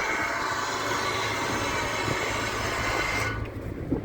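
An engine running steadily with a low hum under a loud hiss. The hiss drops off sharply about three seconds in.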